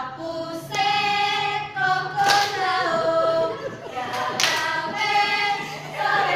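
A group of girls singing together in unison, with sharp hand claps roughly every two seconds.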